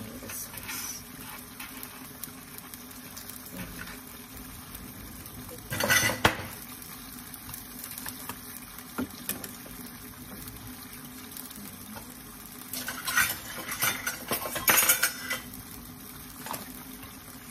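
Kitchen utensils and cookware clinking and clattering in two short bouts, about six seconds in and again from about thirteen to fifteen seconds, over a low steady hum.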